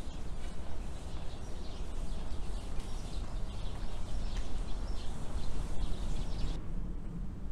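Small birds chirping in quick, scattered notes over a steady low outdoor rumble; the chirping stops abruptly about six and a half seconds in.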